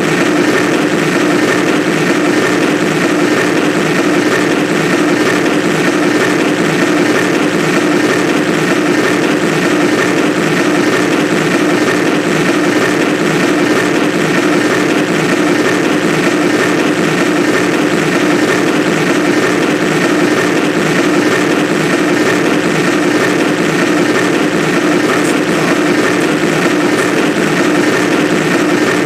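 The 'elevator bad motor' sound effect played loudly: an elevator drive motor running with a steady drone and a strong constant hum, unchanging throughout.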